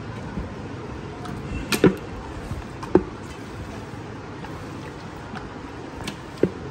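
Hands rubbing masala marinade into a whole chicken in a large vessel: soft handling noise against a steady low background rumble, broken by three sharp knocks as the chicken or the vessel is moved.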